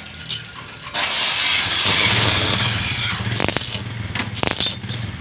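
Electric arc welding crackling and hissing for a couple of seconds, over a steady low hum. A few sharp metallic knocks follow near the end.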